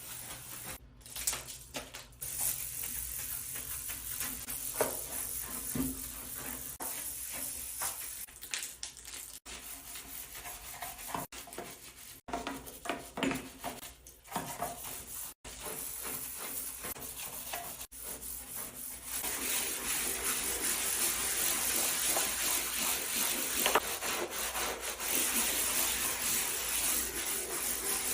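Scrubbing and rubbing noises of cleaning across several short clips, with scattered scrapes and knocks; about two-thirds of the way through it changes to a steadier, louder scrubbing hiss.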